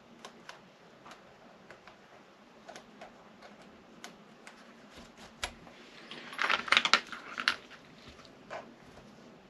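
Small metal clicks and taps of hand tools and hardware while a nut is fitted on an RC car's rear hub, with a burst of quick rattling clicks about six to seven and a half seconds in.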